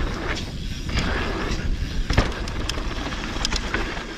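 Mountain bike rolling fast down a dirt trail: a steady rumble of tyres and wind on the mic, with rattling clicks from the bike over bumps and a sharper knock about two seconds in.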